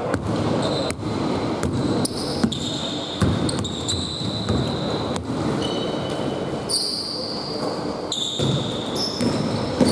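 Basketball being dribbled on a hardwood gym floor, sharp bounces about once a second, with short high-pitched sneaker squeaks and players' footsteps echoing in the hall.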